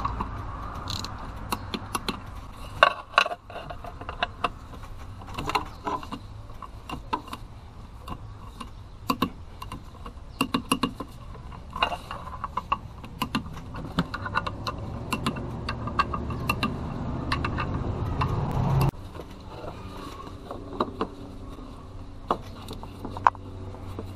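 Ratchet of a torque wrench clicking in short runs as the valve cover bolts of a Cummins 5.9L diesel are tightened to 10 foot-pounds, over a steady low hum that changes abruptly about nineteen seconds in.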